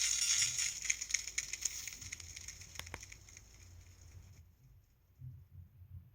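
LG-SH130 mobile phone ringtone playing through the handset's small speaker, its high, rhythmic melody fading out over about four seconds into near silence, with a few faint low thumps near the end.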